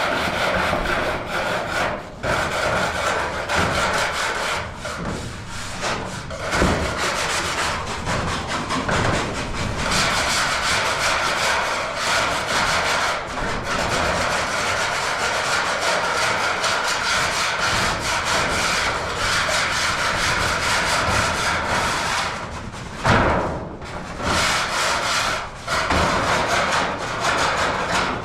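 Steady scraping and rasping of hand work on a building site, running with only short breaks about two seconds in and near the end.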